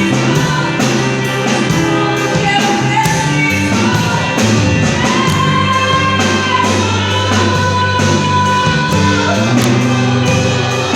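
A band playing with a lead vocal: a woman's singing held and gliding over bass, guitar and a steady drum beat.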